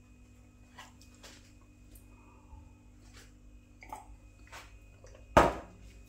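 A man drinking from a glass of water: faint swallowing and mouth clicks, then one short, much louder sound about five and a half seconds in.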